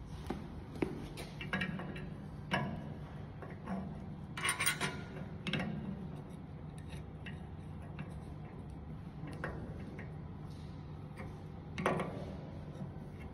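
Scattered metallic clicks and clinks of a hand tool on the steel fittings of a steam safety (pressure relief) valve as its screws are loosened, with a small cluster about four and a half seconds in and a sharper click near the end. A steady low hum runs underneath.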